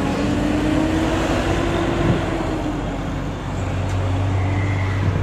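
Steady vehicle road noise with a low engine drone, heard from inside a car moving along the highway.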